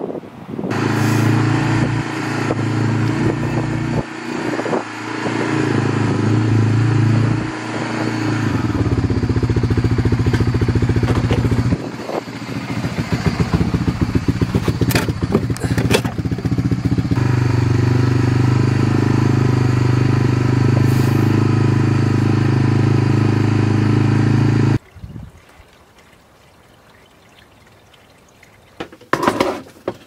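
Small single-cylinder ATV engine idling steadily, with a low hum and a few knocks about halfway through. It cuts off abruptly about 25 seconds in.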